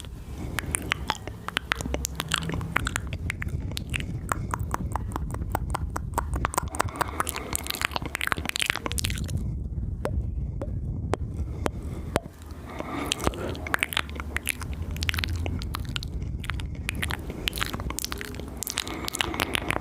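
ASMR mouth sounds: a dense run of rapid wet clicks and smacks from lips and tongue, thinning briefly about halfway through.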